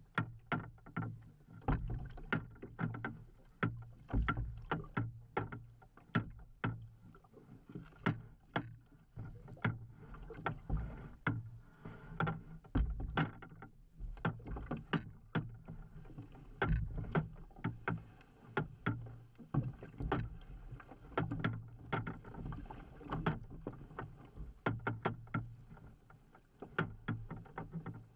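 Small waves slapping and knocking against a fishing kayak's hull on choppy water, in irregular sharp knocks about two or three a second.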